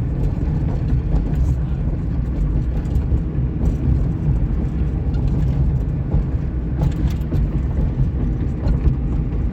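Steady road and engine noise inside the cabin of a 1998 Suzuki Baleno driving along, its dashboard removed, with a few faint brief squeaks or clicks about a second and a half, three and a half and seven seconds in. This light squeaking is what remains once the rattle has gone.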